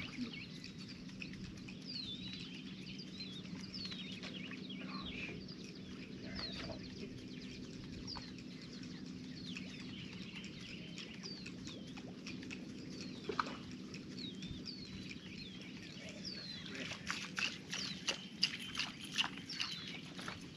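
Salt-marsh birds calling again and again with short downward-sliding chirps, breaking into a quicker run of sharp calls near the end, over a low steady hum that fades out about halfway through.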